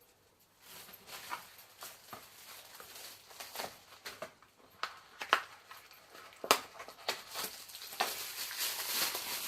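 Hands fitting a new differential bearing: scattered clicks and light taps of metal parts, with a sharper click about six and a half seconds in and a longer rustle near the end.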